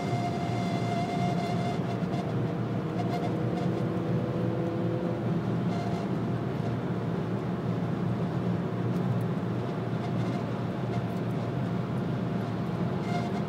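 Steady road and wind noise inside the cabin of a BMW 330 E91 touring at high speed, with a thin, high squeak from the dashboard over it. The squeak is clearest in the first couple of seconds and comes back briefly a few times later. It is the squeal that appears above about 140 km/h, which the owner suspects comes from the ventilation.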